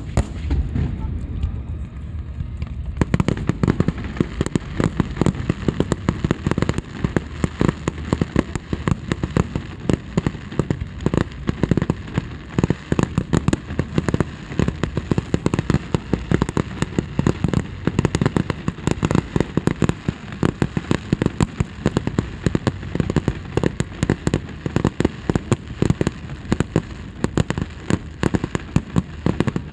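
Fireworks display: a low rumble with scattered bangs, then from about three seconds in a dense, continuous barrage of rapid bangs and crackles, many each second.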